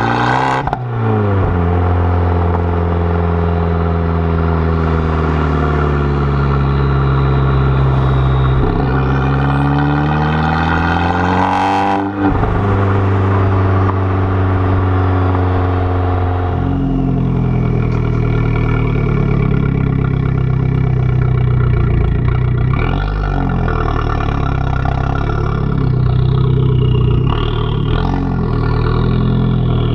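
Exhaust of an Abarth 695 Biposto's turbocharged 1.4-litre four-cylinder, heard right at the Akrapovič tailpipe while driving: the note climbs and drops with the throttle, with brief breaks at gear changes. It runs lower and steadier in the second half, with a few more rises near the end.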